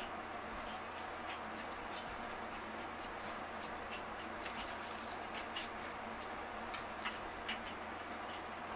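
Chihuahuas' paws scrabbling and rustling on a soft blanket while they play-wrestle: irregular light scratches and ticks over a steady hiss.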